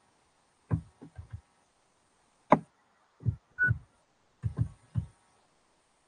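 A series of soft, dull knocks or taps at irregular intervals, about ten in all, with one sharper click about two and a half seconds in.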